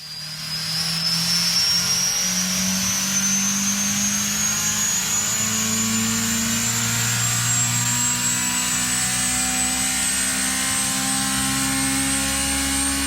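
Exhaust fan running at high speed: a steady rushing whoosh with a low motor hum and a high whine that climbs slowly in pitch throughout, as the fan builds up speed after starting from silence.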